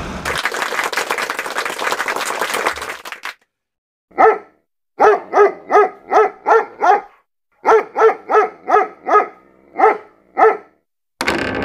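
A dog barking: about fourteen short barks in quick runs, starting about four seconds in. Before them, a noisy rushing sound cuts off about three seconds in.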